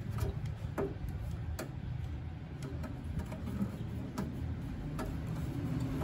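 Scattered, irregular light clicks and taps as fingers work a plastic wire connector on the terminals of a microwave turntable's small synchronous motor, over a steady low background rumble.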